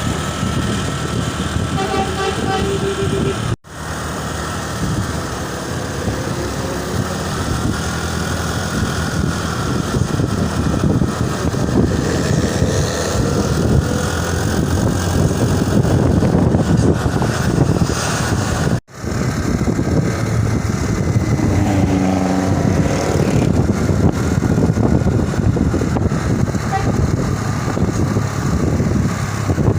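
Heavy road traffic: large vehicle engines running and passing, with road noise and a few faint, short horn toots. The sound cuts out abruptly twice.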